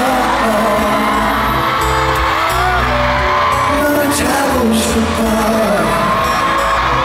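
Live pop music played by a band: steady bass notes and held chords, with singing over it.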